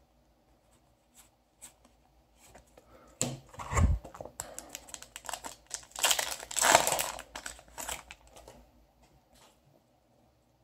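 Foil Yu-Gi-Oh! booster pack being crinkled and torn open, loudest a little past the middle, with faint clicks of trading cards being flipped before it.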